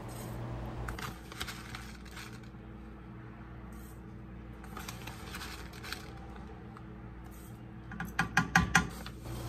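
Faint, scattered clicks and light clinks of a measuring spoon being handled over a saucepan, with a quick run of sharper clinks about eight seconds in, over a low steady hum.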